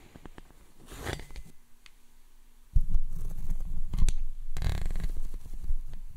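Brushing and rubbing right on the microphone: dry scratchy swishes, with a heavy low rumble of contact noise starting about three seconds in.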